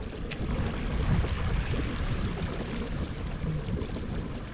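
Wind and water noise around a fishing kayak on open water as a storm comes in: a steady rushing with a low rumble underneath.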